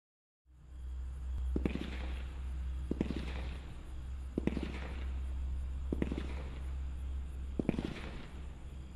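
Brothers 'Saturday Night Special' 36-shot 500-gram fireworks cake firing shots one at a time: five launch thumps about a second and a half apart, each sending up a flaming comet with a short hiss after it. A steady low rumble runs underneath.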